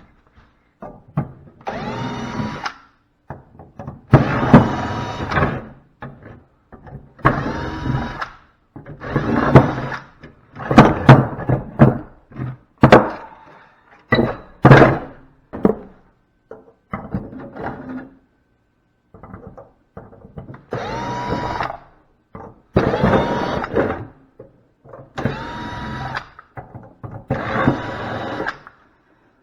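Cordless drill run in repeated short bursts of a second or two, its motor spinning up at each trigger pull and then running steady, with knocks and clatter of metal parts between the bursts.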